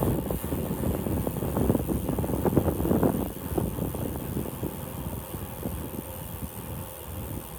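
Wind rumbling and buffeting across the microphone of a camera on a moving bicycle, in gusty low surges that ease off toward the end.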